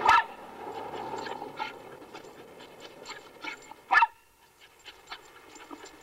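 Dog panting as it runs in circles on a leash, with two short, loud sharp sounds: one right at the start and another about four seconds in.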